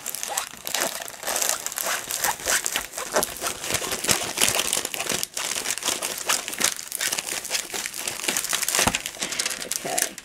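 Stiff paper crinkling and rustling as a rolled diamond-painting canvas and its rolled instruction sheet are unrolled and handled, a continuous run of irregular small crackles.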